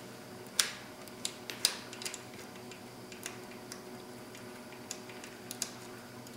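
Scattered sharp clicks and ticks from fingers turning a bicycle-style brake cable barrel adjuster at a StreetStrider front brake, unscrewing it to take up slack in the cable. Two louder clicks come in the first two seconds and fainter ones follow.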